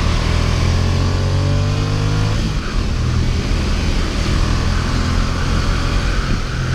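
Ducati XDiavel S's 1262 cc V-twin accelerating hard, its pitch climbing for about two and a half seconds until a gear change drops it suddenly, then pulling on steadily.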